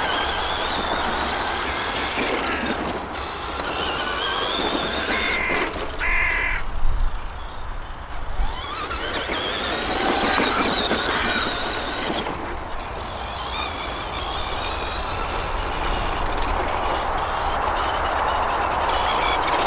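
Tamiya Bush Devil RC monster truck's Kyosho Le Mans electric motor and gearbox whining, the pitch rising and falling as the throttle is worked. A steady low rumble of wind on the microphone runs underneath.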